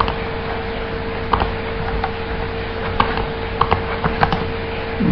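Steady hiss and a constant hum from the recording setup, with a handful of light, irregular computer mouse clicks.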